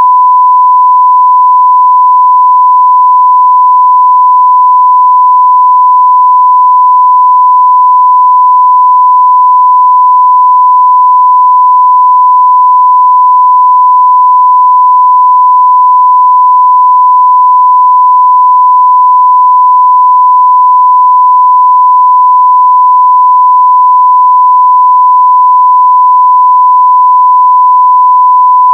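Continuous 1 kHz sine-wave test tone at full scale (0 dB), a single pure pitch held steady without change.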